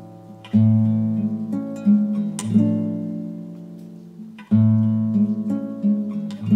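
Acoustic guitar playing the instrumental ending of a song without vocals: chords plucked every second or two, each left to ring and fade away.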